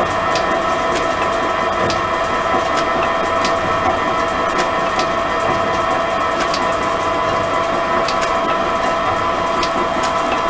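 Pillar drill running steadily with a constant motor hum while a fly-cutter bores out a wooden bearing block, with light, irregular ticks.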